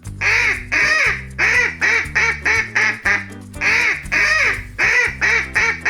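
Duck quacking again and again, about three short quacks a second, over a children's song backing with a steady bass line.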